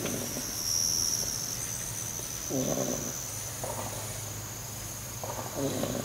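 A pile of 10-week-old beagle puppies snoring in their sleep: several short, rasping breaths a second or two apart, over a steady high insect trill.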